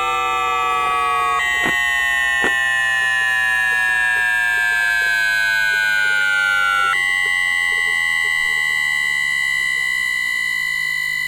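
Bombardier Mitrac IGBT VVVF traction inverter of a London Underground 2009 Tube Stock, heard through a telephone pickup coil: a chord of electronic whining tones gliding steadily downward as the motor slows, with a jump in the pattern about a second and a half in. About seven seconds in it switches suddenly to steady, unchanging tones, a high whine on top, as the inverter changes pulse mode.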